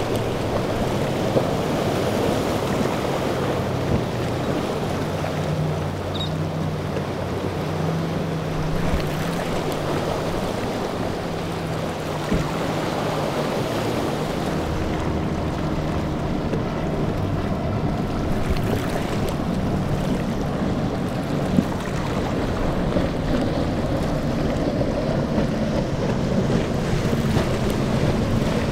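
Outboard-powered boats running at speed through rough inlet chop: a low drone of several engines that shifts in pitch as the boats pass, under the steady rush of wake spray and breaking waves, with wind buffeting the microphone.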